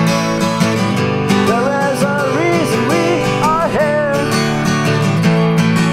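Acoustic guitar strummed in a steady rhythm, with a wordless vocal melody rising and falling over it in the middle.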